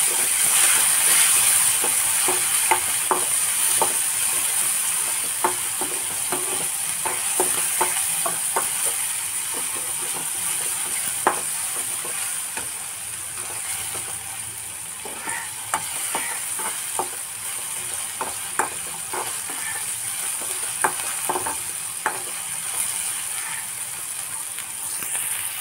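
Chopped tomato, onion and capsicum sizzling in oil in a metal kadai, with a metal spoon scraping and clicking against the pan as the vegetables are stirred. The sizzle is a little louder in the first few seconds, just after the tomato goes in.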